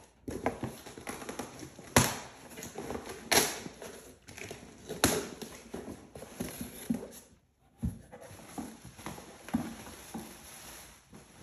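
A mailed package being opened by hand: rustling and scraping of the packaging with several sharp knocks and taps, the loudest about 2, 3.5, 5 and 8 seconds in.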